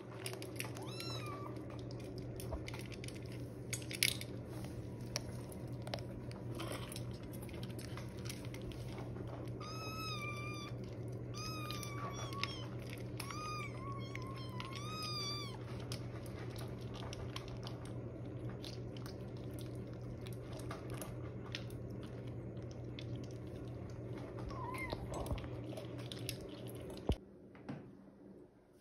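Kittens eating from a metal bowl, with small clicks and chewing, and high kitten meows: one about a second in, a run of five or six about ten to fifteen seconds in, and another near the end. A steady low hum runs underneath and cuts off near the end.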